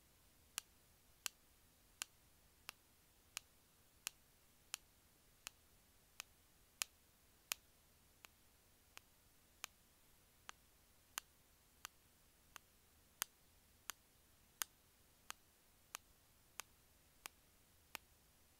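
Sharp clicks repeating at a steady pace, about three every two seconds, some louder than others, against near silence.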